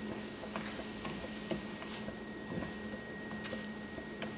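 Silicone spatula stirring and folding soft, creamy scrambled eggs around a nonstick skillet: quiet squishing and light scraping, with a few soft clicks.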